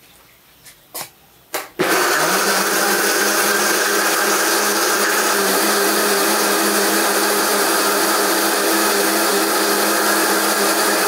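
Countertop blender switched on about two seconds in and running steadily at an even pitch, blending ice, nuts and fruit into a smoothie. A few light clicks of the lid being handled come just before it starts.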